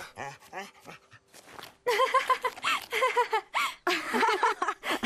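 A dog panting and sniffing in short puffs, then from about two seconds in a girl laughing in a run of short, repeated bursts.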